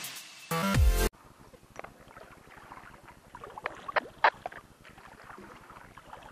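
Electronic intro music ends about a second in with a downward-sliding sweep. After it, quiet open-water ambience from a kayak, with scattered small splashes and clicks of water and gear at the hull.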